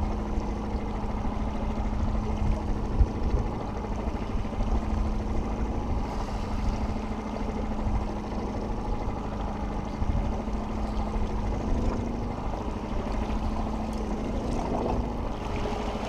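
Boat's outboard motor running steadily at trolling speed, a constant hum with a low rumble.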